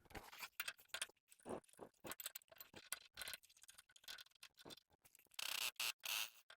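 Faint, irregular small clicks and taps of tools and metal parts being handled, with a few short scraping sounds near the end.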